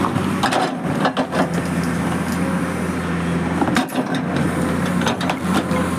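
Excavator diesel engine running steadily, with a series of sharp knocks and clanks about a second in, again near four seconds and just after five seconds, as the machine works the big rock.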